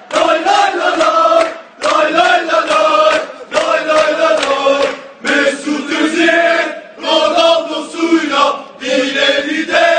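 Crowd of male football supporters chanting a Real Madrid song in unison, in loud sung lines under two seconds long with a brief break between each.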